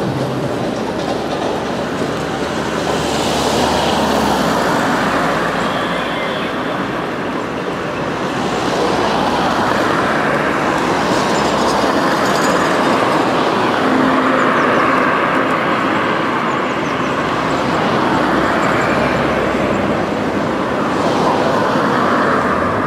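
Steady rolling noise of a bicycle ridden along a tarmac road: tyre rumble and a continuous rattle, with no clear breaks.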